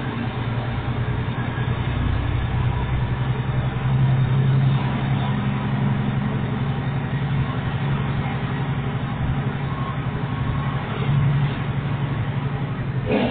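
Truck engine running as the truck drives, heard from inside the cab, its note swelling briefly about four seconds in and again later. A single sharp knock comes at the very end.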